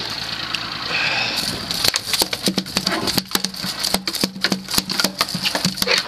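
A freshly landed kingfish (narrow-barred Spanish mackerel) thrashing on a fiberglass boat deck. From about two seconds in, its tail beats a rapid, irregular drumming of slaps against the deck.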